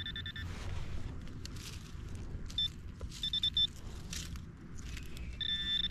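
Handheld metal-detecting pinpointer beeping in quick runs of same-pitched high beeps as it is probed through loose dirt in a hole. The beeps signal metal near its tip. Between the runs there is scraping and rustling of soil being moved by hand.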